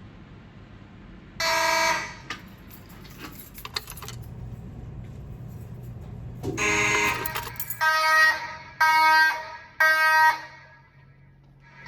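Fire alarm horn sounding in short blasts during a walk test: one blast about a second and a half in, a longer one at around six and a half seconds, then three quick blasts about a second apart.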